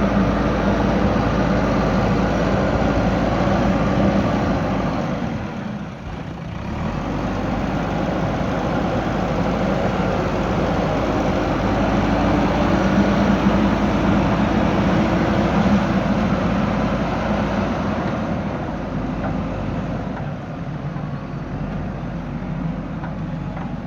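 JCB backhoe loader's diesel engine running steadily at work, dipping briefly about six seconds in and easing off a little near the end.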